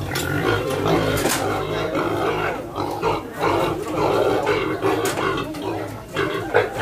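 A pig squealing loudly and without a break, shut in a metal weighing cage on a platform scale.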